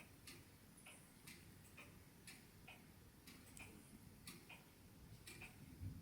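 Faint, regular ticking, about two ticks a second, over near silence.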